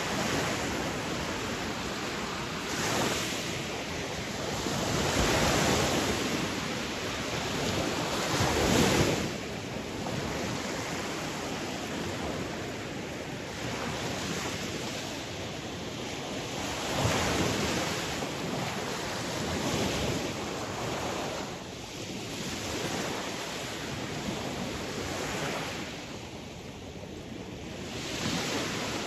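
Sea waves breaking and washing on a shore, a steady rushing surf that swells every few seconds, with the loudest crash about nine seconds in.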